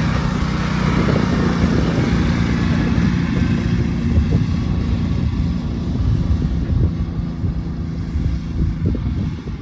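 Kawasaki Brute Force 650 ATV's twin-cylinder engine running steadily under throttle as the quad drives away. It grows fainter over the last couple of seconds.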